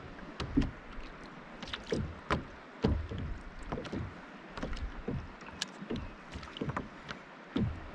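Small waves slapping and knocking against a plastic fishing kayak's hull: irregular slaps, one or two a second, over a faint wash of water.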